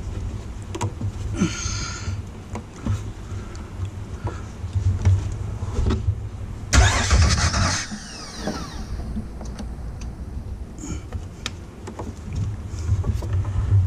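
Handling noise in the engine bay of a Jeep 4.0 straight-six: scattered clicks and knocks of metal and rubber as a compression tester hose is worked into a hard-to-reach spark plug hole, over a steady low hum. A louder scraping rush about seven seconds in.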